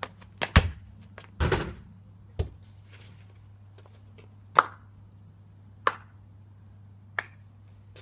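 A football struck hard with a Nike football boot: a sharp thump about half a second in, followed by a longer dull thud and another thump as the ball lands and bounces. Then single sharp taps, about one every second and a half.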